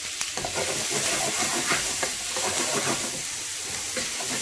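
Diced onions frying in hot oil with cumin seeds in a non-stick frying pan, with a steady sizzle. A spatula stirs and scrapes them across the pan.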